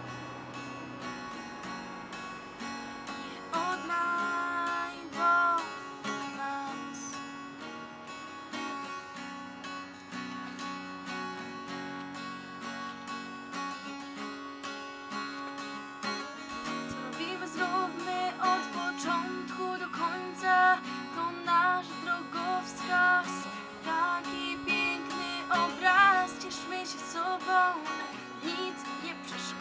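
Acoustic guitar strumming chords, with a higher melody line that comes and goes over it.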